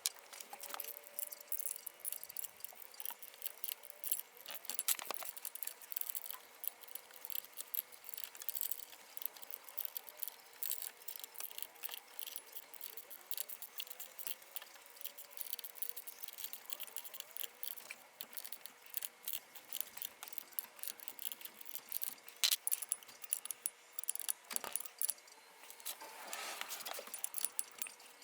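Small metal parts and tools clinking and tapping as they are handled, many short irregular clicks, with a faint steady hum behind them.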